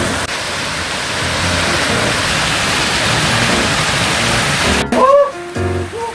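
Small waterfall pouring into a rock pool, a steady rushing hiss. It breaks off suddenly about five seconds in, and a man's voice is heard after it.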